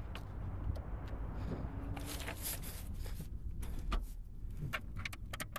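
Clicks, knocks and rustles of hands working a Toyota Celica's open door and interior controls while the car is pushed by hand, over a steady low rumble.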